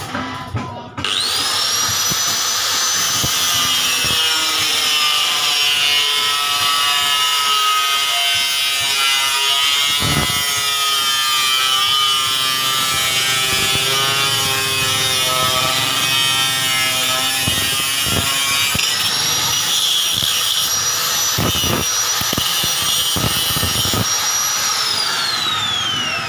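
Electric motor of a coconut grater built from a used water pump, spinning up with a rising high whine, running steadily with a rubbing, sawing noise, then winding down near the end.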